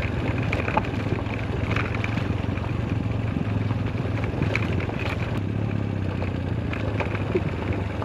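Motorcycle engine running steadily while the bike rolls over a loose, rocky gravel trail, with scattered short clicks and knocks from the stones and the bike.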